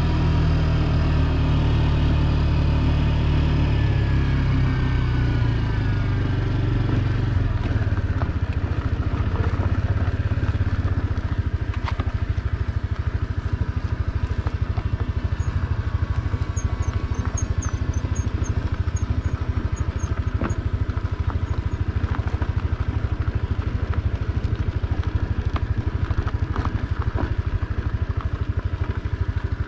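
Small moped engine running while it is ridden. Its pitch shifts during the first several seconds, then about seven seconds in it settles lower into a fast, rough putter.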